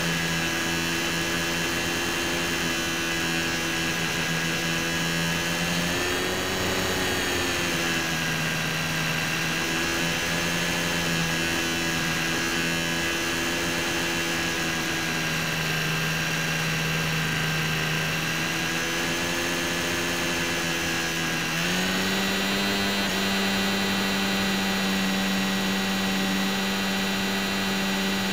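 HobbyZone Champ micro RC plane's electric motor and propeller running in flight, heard close up from a camera mounted on the plane, a steady whine over a hiss of rushing air. The pitch wavers with the throttle, rising briefly about six seconds in, then stepping up a little past two-thirds of the way through and holding higher.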